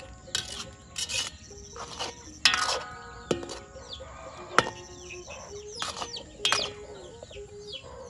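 A perforated metal skimmer scraping and clanking against a metal pan as food is stirred, in about a dozen irregular strokes. Faint music plays underneath.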